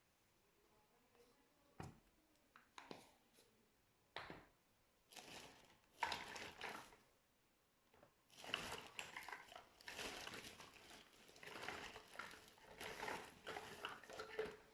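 Slime being squished and kneaded by hand: a few separate short squishes, then longer runs of continuous squishing from about five seconds in.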